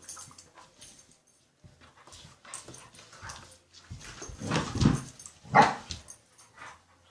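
Two border collies play-fighting, their voices coming in short irregular bursts. The two loudest bursts come close together a little past the middle.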